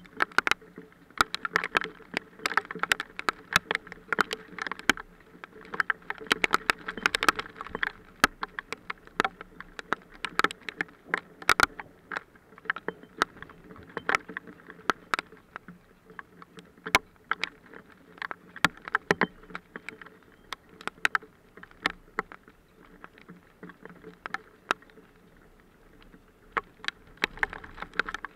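Hail falling: many irregular sharp hailstone hits, dense at first, easing off for a few seconds late on, then picking up again near the end.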